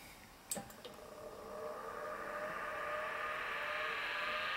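Two short clicks, then a vintage Seagate ST-225N 5.25-inch hard drive spinning up at power-on: a whine that rises steadily in pitch and grows louder as the spindle motor comes up to speed.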